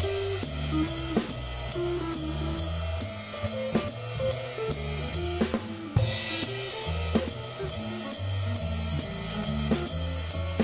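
Jazz drum kit playing a swing ride-cymbal legato pattern with snare and bass-drum comping, over a backing track with a bass line and an improvised solo. The drummer marks the phrase breaks to match the solo: a break landing on beat one at the fourth bar, and an anticipation of the downbeat at the eighth.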